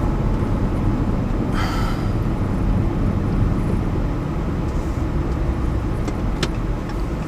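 Car cabin road and engine noise while driving: a steady low rumble. A short higher-pitched sound about a second and a half in, and a single sharp click near the end.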